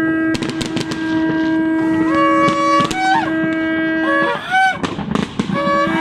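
Two shofars sounding together. One holds a long, steady blast that breaks off about four seconds in. The other enters about two seconds in, jumps up in pitch a couple of times and ends in a quick rising whoop. New Year's fireworks bang and crackle over them, with a quick cluster of bangs about half a second in.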